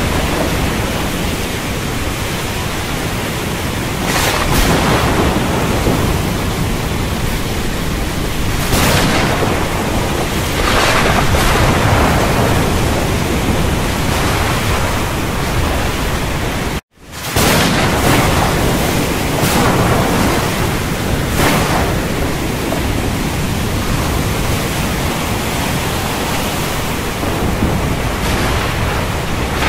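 Thunderstorm sound: a steady rushing hiss with low rumbles of thunder swelling and fading several times. About halfway through, the sound cuts out for a split second and comes straight back.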